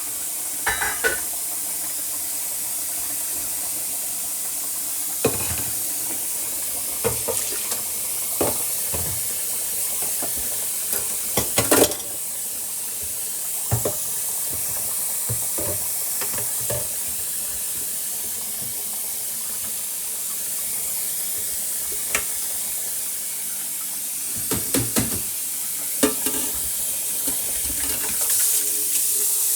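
Chicken frying in a pan: a steady sizzle, with scattered knocks and clinks of a utensil against the pan.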